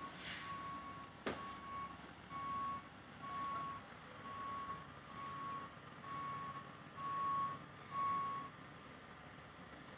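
Fire truck's reversing alarm beeping steadily, one single-pitched beep about every second, stopping about eight and a half seconds in. A single sharp click a little over a second in, over a low background hum.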